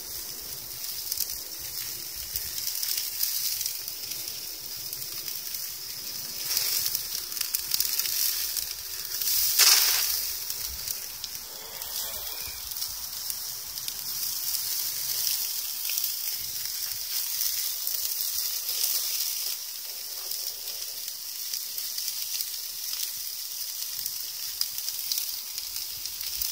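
Sausages and merguez sizzling on a grill over a wood fire, a steady high hiss that swells about seven seconds in and surges louder near ten seconds.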